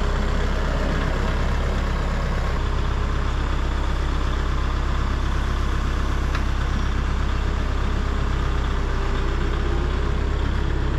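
Kubota loader tractor's diesel engine idling steadily.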